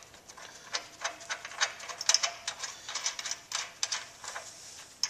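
Irregular metallic clicks and clinks, a few a second, as a nut is run onto a bolt on a steel frame bracket and tightened.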